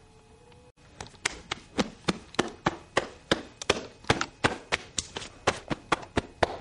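A pat-down search: hands patting someone's clothing close to the microphone in a quick run of sharp taps, about four a second, starting about a second in.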